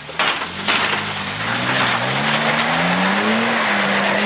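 2009 Toyota Tacoma's engine revving hard under load as the truck climbs a rock ledge, its pitch rising over the first three seconds and then holding. A loud rushing, scrabbling noise from the tires spinning on wet rock starts suddenly just after the start.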